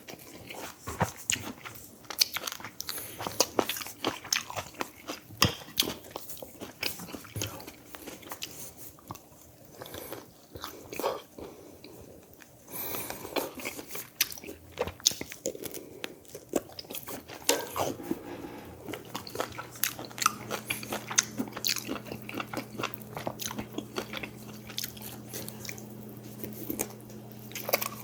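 Close-up eating sounds from a mukbang: biting, chewing and crunching food, with many irregular mouth clicks and smacks. About two-thirds of the way in, a faint steady low hum joins.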